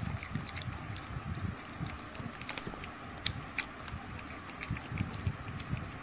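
Kittens licking and lapping at a soft ice-cream bar: irregular small wet clicks and smacks, over a low background rumble.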